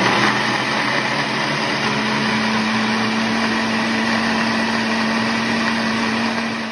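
Philco countertop blender running at a steady speed with a constant motor hum, churning soaked cashews and almond milk into cashew cream.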